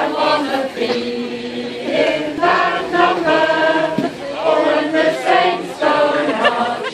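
A crowd of men and women singing together unaccompanied, an untrained group choir with voices in rough unison.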